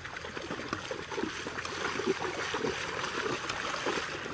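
Shallow water lapping and gurgling close by, a steady trickling wash with small irregular splashes from people wading through it.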